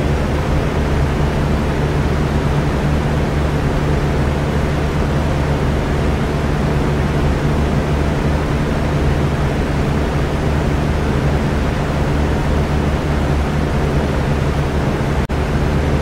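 Electric fan running steadily: an even whooshing rush of air with a low motor hum beneath it. The sound drops out for a split second near the end.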